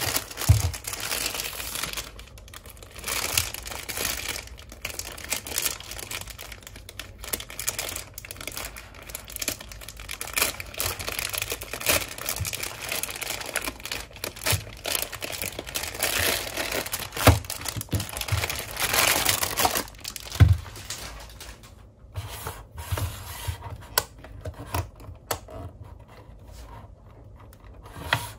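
Clear plastic packaging bag crinkling and tearing as it is cut open with small scissors and pulled off a plastic toy part. Near the end the rustling dies down to a few light plastic clicks and handling sounds.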